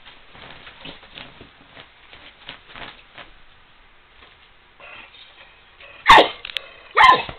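Faint scattered scratching and tapping of a cat's claws on a cat tree, then two short, loud barks from a dog about a second apart near the end.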